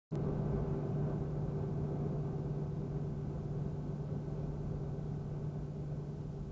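Boeing 737 cabin noise heard from inside the plane: a steady jet-engine hum with a constant low drone, cutting in suddenly right at the start.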